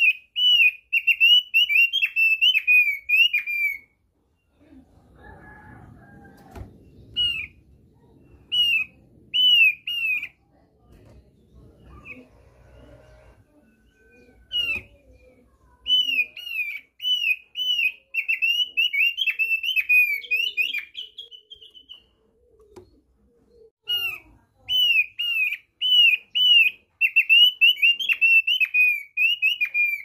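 Thick-billed opior (opiyor paruh tebal) singing: quick runs of short, down-slurred chirps in bursts of a few seconds. Between the bursts there is faint rustling and shuffling.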